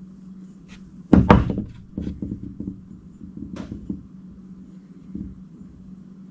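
A heavy iron railroad spike is knocked down onto a wooden workbench about a second in, followed by smaller knocks and clicks as fishing line is wrapped and tied around it. A steady low hum sits underneath.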